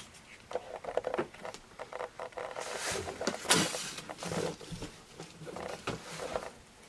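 Cardboard box and packaging being handled: irregular rustling and scraping with small knocks, busiest and loudest about three and a half seconds in.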